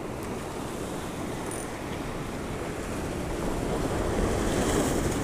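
Sea surf washing and breaking against the rocks below, with wind buffeting the microphone. The rush swells a little toward the end.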